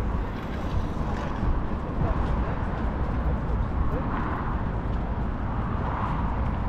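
Outdoor city street ambience: a steady low rumble of road traffic, with faint voices in the background.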